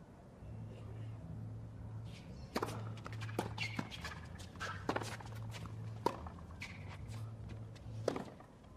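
Tennis rally on a hard court: sharp racket strikes and ball bounces about once a second from a few seconds in, with shoe squeaks and footsteps between them, over a steady low hum.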